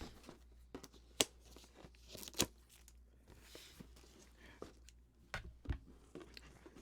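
A plastic model kit being unpacked: the cardboard box and plastic-bagged parts are handled, giving scattered clicks and taps with soft crinkling of plastic. Two sharp clicks, about a second and two and a half seconds in, are the loudest.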